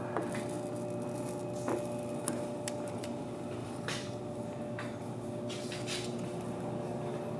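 A steady hum, with a few faint ticks and crinkles scattered through it from a thick strip of clear protective film being peeled off a car's body panel and handled.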